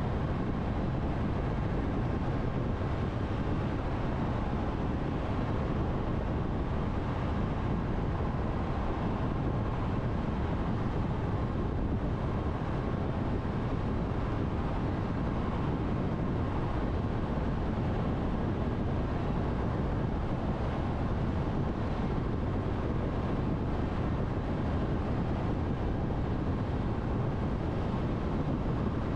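Steady road noise of a car cruising at expressway speed through a road tunnel: a constant rumble of tyres and wind.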